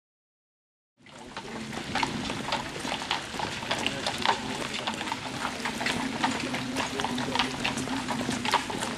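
Abrupt start about a second in. From then on it is an outdoor scene in falling wet snow, with people's voices nearby, many irregular sharp clicks and taps, and a steady low hum underneath.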